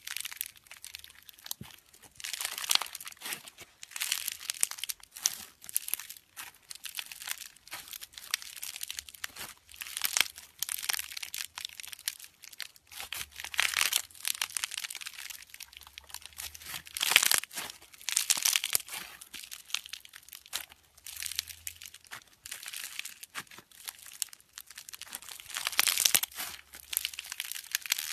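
Floam slime, thick with small polystyrene foam beads, being squeezed, stretched and pressed between fingers. It crackles and crunches in repeated bursts, about one every second or two.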